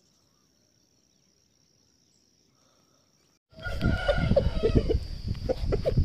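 Almost silent at first apart from a faint, steady, high insect drone. A little past halfway the sound cuts in loudly: a low rumbling noise under the insect drone, with short repeated clucking calls from chickens.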